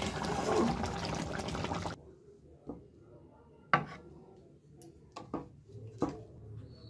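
Curry gravy bubbling and sizzling in a pan, which cuts off about two seconds in. Then a few short knocks of a metal spoon against a plate as fish pieces are served, the loudest a little after the middle.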